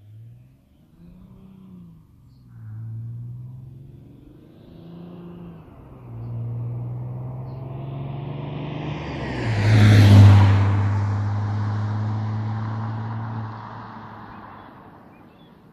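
Audi A6 C5's 2.5 TDI V6 diesel engine and exhaust accelerating through several gears, the pitch climbing and dropping back at each shift. It is loudest as the car passes about ten seconds in, then holds a steady note and fades as it drives away.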